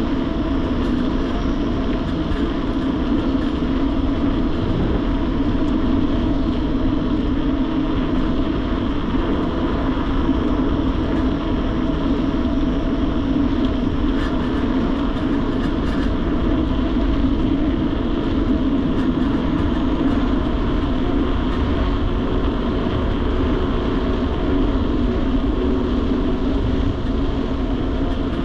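Steady rushing rumble of a mountain bike ride picked up by a bike-mounted GoPro: wind over the microphone and the tyres rolling on the road, even throughout.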